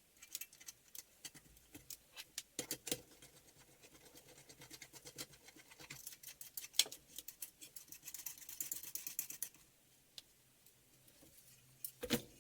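Faint clicks, taps and scraping of metal parts being handled and fitted together while assembling a homemade motorcycle muffler, with a stretch of scraping about eight seconds in.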